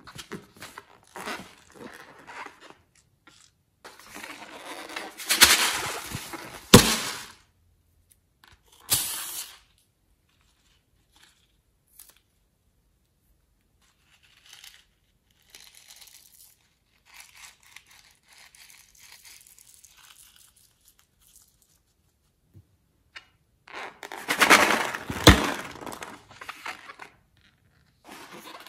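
Hands cutting and squeezing slime-filled rubber balloons over a glass bowl: a few bursts of rubbing and handling noise, the two loudest each ending with a sharp click. Between them, fainter soft sounds as the contents are squeezed out into the bowl.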